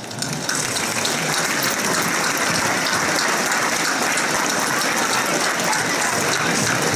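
A large crowd applauding: dense, steady clapping that builds up within the first half second and then holds.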